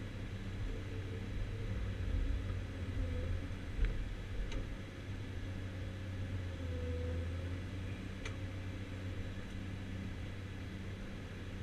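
Caterpillar 345C UHD demolition excavator heard from inside its cab: the diesel engine runs steadily under a low hum, and a hydraulic whine dips and rises as the boom and the scrap shear move. A few sharp ticks sound about a third of the way in and again about two thirds in.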